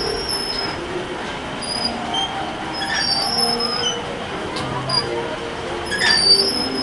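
Children's carousel turning, its mechanism running with a steady rumble and short, high metallic squeals that recur every second or two.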